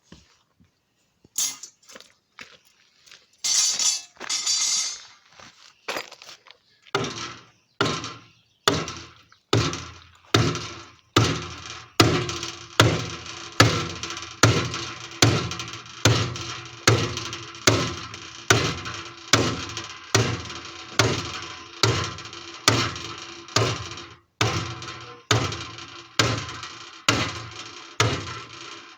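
Hammer blows driving a wedge in between the bent steel plates of a wood-fired water heater's firebox, each blow ringing in the steel. A few scattered blows and a scrape come first, then steady hammering at about one and a half blows a second, with a short break near the end.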